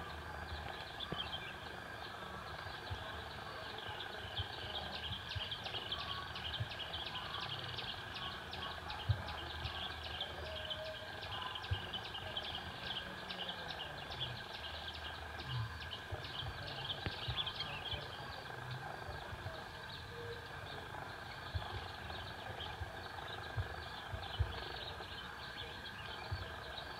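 Outdoor field ambience. A high chirping repeats several times a second over a steady high drone, and the chirping fades out after about two thirds of the way. Occasional soft low thumps sound throughout.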